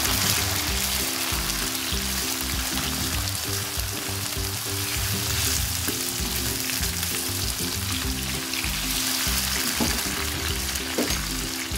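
Oil sizzling steadily as boiled eggs, potato chunks and freshly added tomato pieces fry in a wok and are stirred with a slotted spoon, with a couple of light clicks near the end. Background music plays underneath.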